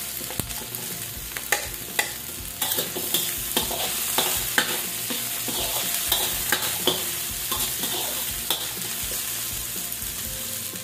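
Cubed squash frying in hot oil in a metal wok with sautéed onion, garlic and ginger: a steady sizzle, with a metal spatula scraping and knocking against the pan many times as it stirs.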